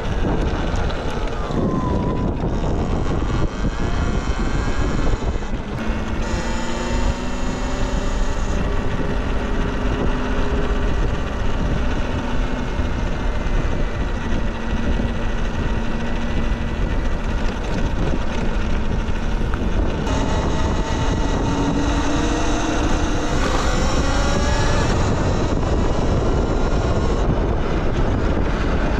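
Electric dirt bike motor whining, its pitch rising and falling with speed, under heavy wind rumble on the microphone.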